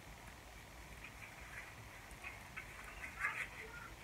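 Faint rustling and crinkling of a sheet of protective paper being handled and folded back, with a louder crinkle about three seconds in.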